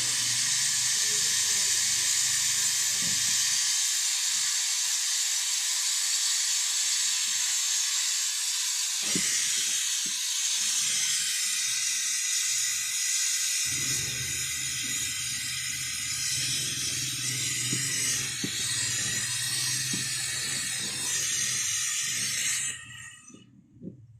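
Water rushing from a tap under pressure with a steady hiss, cut off suddenly near the end.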